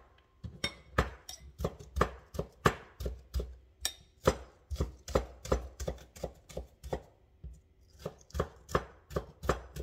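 Knife dicing a quarter of an onion on a cutting board: sharp, even chops about three a second, with a short pause about seven seconds in before the chopping resumes.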